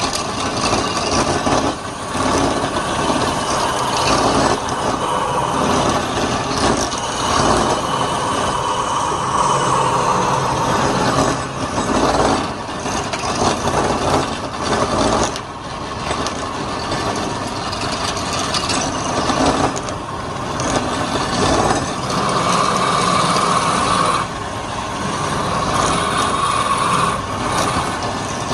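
Wood lathe running with a turning tool cutting into the spinning wood: a continuous rough cutting noise that swells and eases as the tool is worked.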